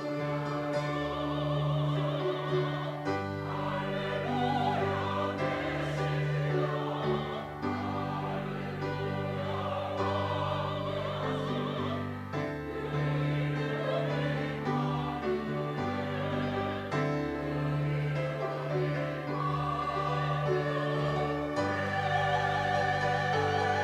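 Church choir singing an anthem, holding long notes with vibrato.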